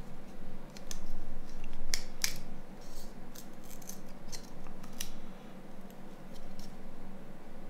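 Small plastic phone body-shell and chrome trim parts being handled and pried apart by hand: a scattering of sharp clicks and light scrapes, the loudest pair about two seconds in.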